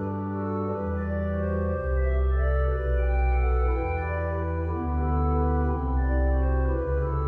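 Organ music: slow, held chords over a deep bass line, the harmony changing about once a second.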